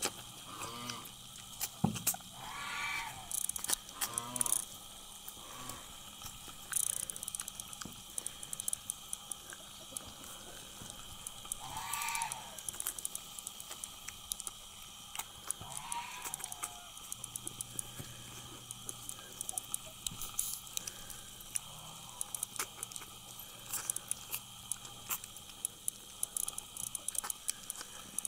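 Kittens eating from a dish, a steady scatter of small chewing and licking clicks, with a cat meowing a few times, short wavering calls, the longest about twelve seconds in.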